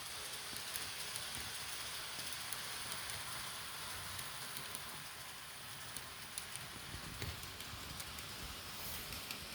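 N gauge model train running on the layout track: a steady rattling hiss with many small scattered clicks.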